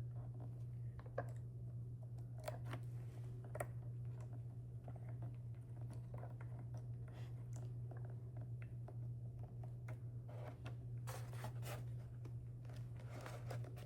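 Faint clicks and scrapes of a small screwdriver driving tiny screws to fasten an LED afterburner ring to an electric ducted fan motor, with a run of quicker clicks near the end, over a steady low hum.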